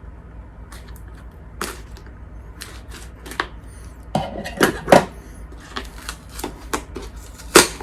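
Irregular clicks and knocks of a Lansky sharpening kit's box and parts being handled and set down, with a few louder knocks around the middle and one near the end.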